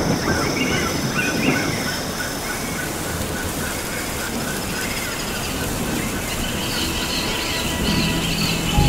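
Nature ambience: a steady hiss with many short bird calls repeating over it.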